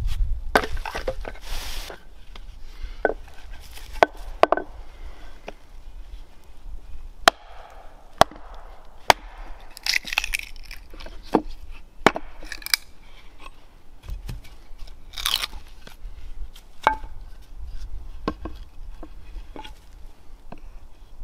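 Hatchet striking and splitting small sticks of firewood on a log chopping block: sharp wooden knocks at irregular intervals, roughly one every second or two.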